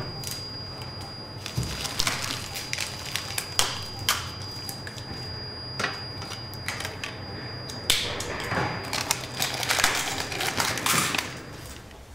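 Irregular clicking and clinking of small glass and plastic items: medicine vials, bottles and packaged supplies being handled on a medication counter. The clicks grow busier toward the end, over a faint steady high whine.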